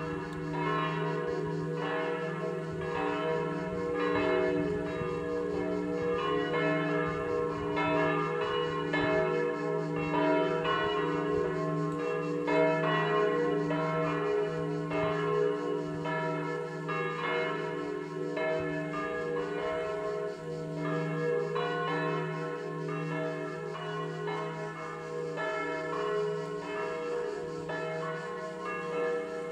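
Festive peal of three church bells in E3, swinging in the belfry and striking over and over in a continuous overlapping pattern, with the deep note of the largest bell humming beneath the higher strikes.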